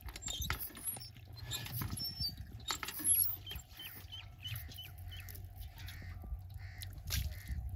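Small birds chirping over and over in short calls, mixed with a few soft knocks and rustles.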